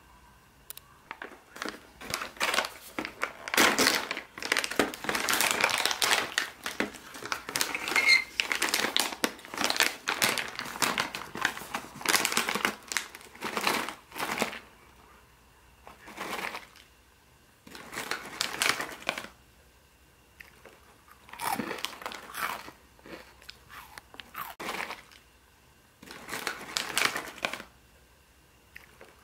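Foil snack bag of shrimp crackers being torn open and crinkled in a dense, crackly run for about fourteen seconds, then rustling again in short bursts every few seconds as crackers are taken out.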